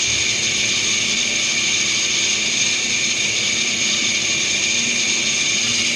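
Essilor Mr. Blue lens edger milling a spectacle lens: a steady high-pitched whine from the spinning milling cutter over a hiss.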